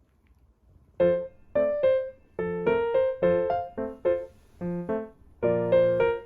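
Background music: a piano-like keyboard playing a light melody of separate struck notes and chords, starting after about a second of near silence.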